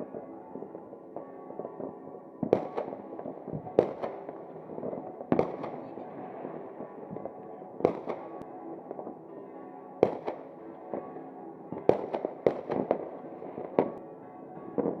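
Fireworks going off, sharp bangs every second or two at uneven intervals, with music playing underneath.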